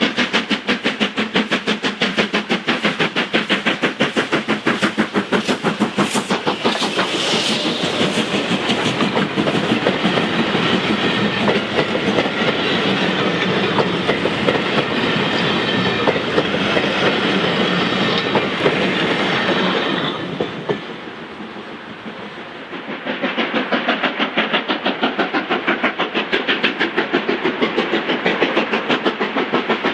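LMS Black Five 4-6-0 steam locomotive No. 45212 working a passenger train, with a fast, even rhythmic beat. About two-thirds of the way through, the sound drops away for a couple of seconds, then comes back just as loud.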